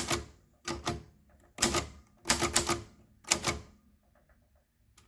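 Keys of a Royal typewriter in a transparent plastic case striking the paper one at a time: about six slow, separate keystrokes, each with a short ring, then a pause near the end.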